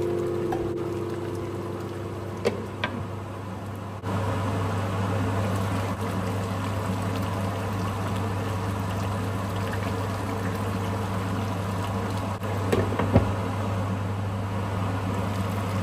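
A pot of chicken curry simmering on a gas stove, a steady bubbling and hissing with a low hum that gets louder about four seconds in. A few sharp metal clinks of a spoon or lid come early on and again near the end.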